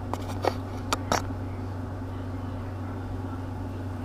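A few light clicks and taps in the first second or so as a large steel J hook and leader wire are handled at a glass table, over a steady low hum.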